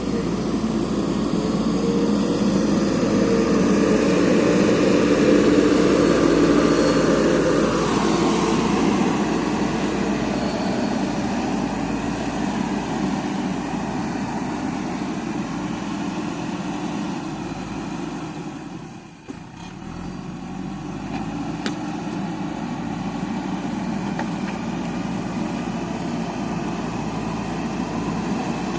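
JCB backhoe loader's diesel engine running, louder and higher for the first several seconds, then dropping in pitch and level about eight seconds in and running steadily, with a brief dip about two-thirds of the way through.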